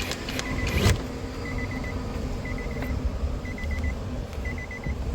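A 2003 Nissan Altima's warning chime beeping in quick groups of four, about once a second, over a low background rumble. A sharp knock sounds about a second in.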